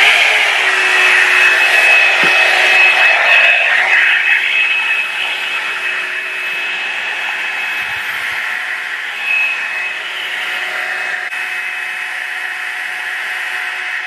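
Revlon One Step hair dryer brush running: a loud, steady rush of blown air with a thin high motor whine and a low hum. It settles a little quieter after about five seconds.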